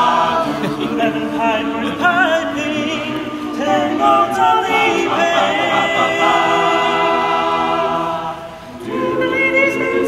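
Male a cappella group singing in close harmony. Moving vocal lines give way to a long held chord about five seconds in, which breaks off briefly near the end before a new chord begins.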